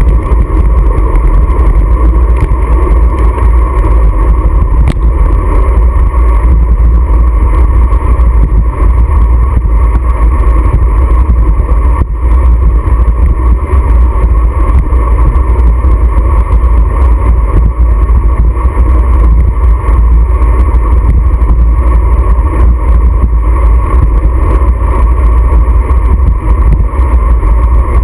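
Loud, steady wind buffeting on a handlebar-mounted action camera's microphone as a road bicycle rides at speed, with a steady mid-pitched hum under it.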